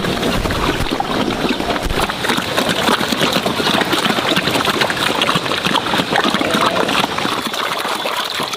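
Water splashing and trickling steadily, a dense crackling rush.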